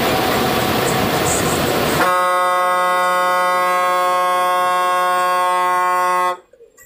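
Bus running with engine and road rattle, then a long, steady horn blast starting about two seconds in. The horn holds one pitch for about four seconds and cuts off suddenly near the end.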